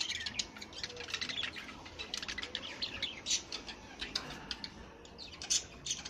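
Caged budgerigars chirping and chattering: a dense run of short, high chirps, a few louder than the rest.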